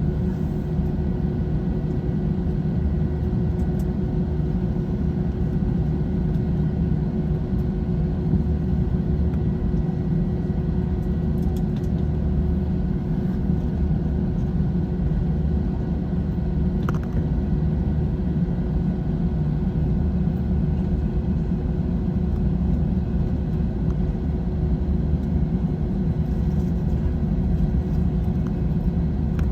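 Airbus A321 cabin noise: a steady low rumble from the running jet engines and airframe, with an even hum, holding at one level throughout.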